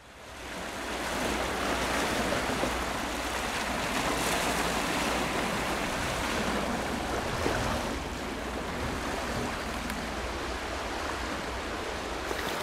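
Sea surf washing and churning over a low rocky reef, a steady rushing of water that fades in over the first second and eases slightly after about eight seconds.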